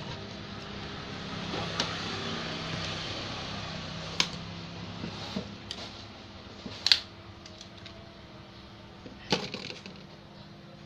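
A few sharp clicks and taps, about four, of small tools and phone parts being handled during a phone teardown, over a steady low hum.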